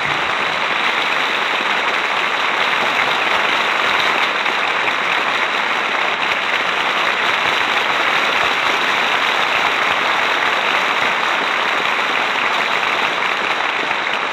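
Studio audience applauding steadily at the end of a live radio play, heard on an old 1939 broadcast recording.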